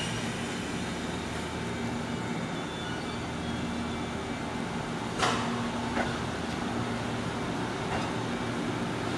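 JR 415 series electric train pulling out at low speed, a steady rumble and hum of its motors and wheels. A brief sharp burst about five seconds in and a single click a second later.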